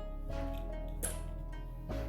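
Background music: held notes changing pitch over a steady low bass line.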